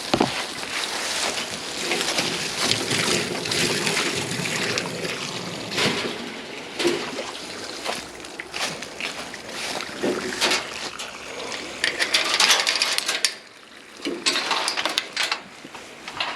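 Water splashing and running into a container, uneven in strength, with scattered knocks and handling noise.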